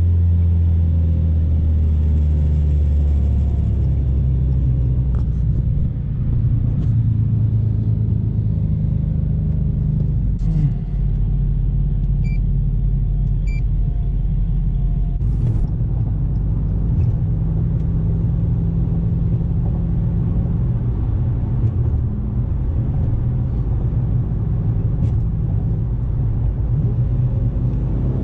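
Twin-turbo Dodge Challenger Hellcat's V8 running steadily at highway cruising speed, heard from inside the cabin with road rumble. The engine note starts to rise right at the end.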